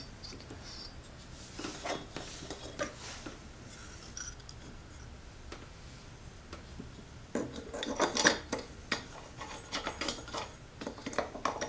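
Hand wrench tightening the flywheel nut on a Briggs & Stratton lawn mower engine: scattered metallic clicks and scrapes, with a quicker run of clicking and clinking from about seven seconds in.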